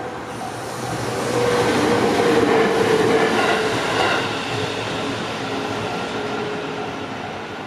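An electric train on the JR Gotemba Line passing over a level crossing. It builds to its loudest about two to three seconds in, then slowly fades, while the crossing's warning bell keeps ringing in a steady repeating beat underneath.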